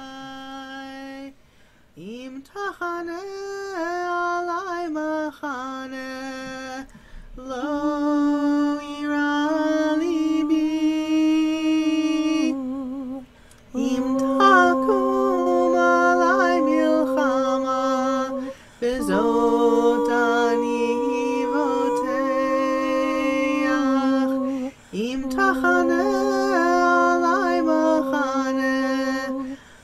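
Women singing a slow chant a cappella: phrases of a few seconds with long held notes, separated by short breaks.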